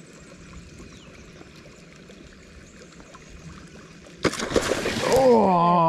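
Faint steady flow of river water, then about four seconds in a sudden loud splash as a Murray cod blows up on a surface lure, followed by a man's excited drawn-out shout that falls in pitch.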